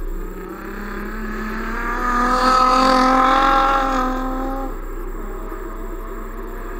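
Drift car's engine held at high revs as it slides past, swelling to its loudest about three seconds in and then fading away.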